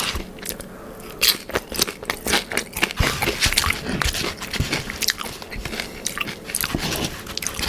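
Close-up eating sounds: Dorito-topped nachos with chicken, cheese, sauce and a jalapeño being bitten and chewed, with many sharp crunches of the tortilla chips.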